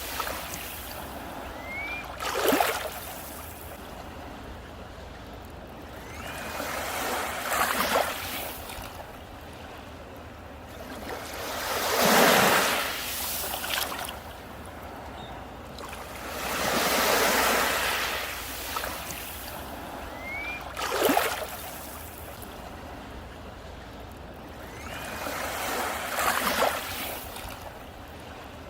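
Sea waves breaking on a beach: the surf swells and recedes about every five seconds, and several of the waves break with a sharp crash.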